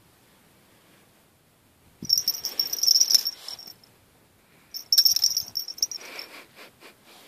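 Twin bite-alarm bells on an ice-fishing rod tip jingling in two bursts, about two seconds in and again near five seconds: the bells are being shaken by a fish tugging at the line.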